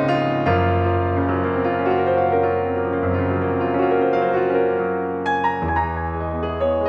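Background music: a piano-led instrumental track with sustained chords over a held bass note, the harmony shifting about half a second in and again near the end.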